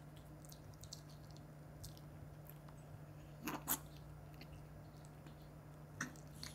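A small dog crunching pieces of raw cucumber: a few sharp crisp bites, the loudest pair about three and a half seconds in and more near the end, over a faint steady low hum.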